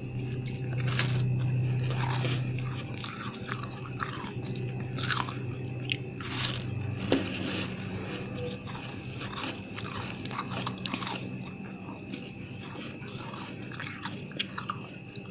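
Soft freezer frost being bitten and chewed: irregular crunches at uneven spacing, a few sharper ones about six and seven seconds in.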